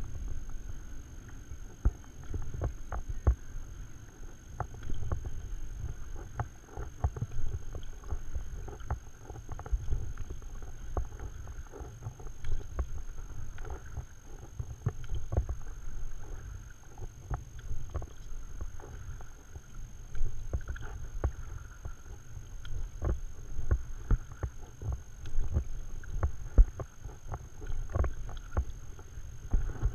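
Stand-up paddle strokes through calm water: the blade dips and pulls, with splashes, drips and many irregular light clicks and knocks. Under them runs a steady low rumble, with a faint steady high whine above.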